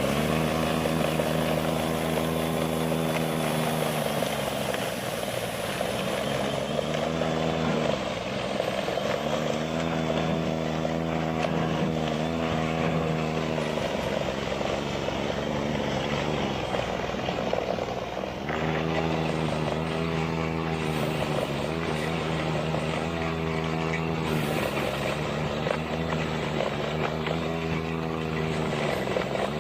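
PowerSmart 80-volt brushless cordless two-stage snow blower running: a steady whirring hum whose pitch sags briefly and recovers several times.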